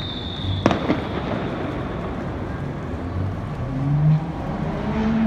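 Fireworks: a whistle falling in pitch ends in a sharp bang under a second in, with a second crack right after. A vehicle engine then rises in pitch over the general rumble toward the end.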